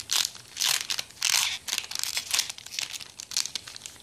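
Foil booster-pack wrapper of Pokémon trading cards being crumpled and crinkled by hand: a run of irregular crackly rustles, the loudest about a second and a half in, thinning out near the end.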